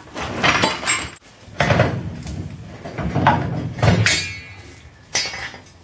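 Several heavy metal clanks and knocks in irregular succession as the front coil spring of a Wolseley 24/80 is let down on a trolley jack and pulled free; one clang about four seconds in rings on.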